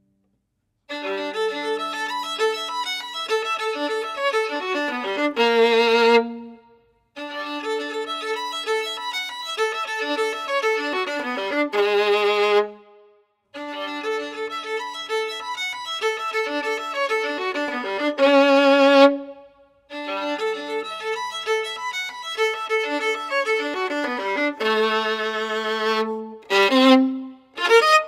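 Solo violin playing phrases of quick running notes, each closing on a louder held note with vibrato, with short silences between phrases. It starts about a second in, and near the end the phrases break into shorter fragments.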